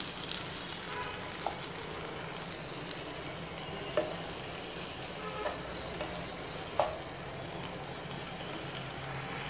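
Green chilli and garam masala sizzling in a little oil and water in a saucepan while being stirred with a spatula, with a few short taps and scrapes of the spatula against the pan.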